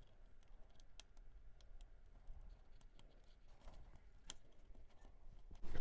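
Faint, scattered light clicks and taps of a small plastic SATA cable connector being fitted and fiddled with inside a mini PC, ending in a sudden louder burst of handling noise.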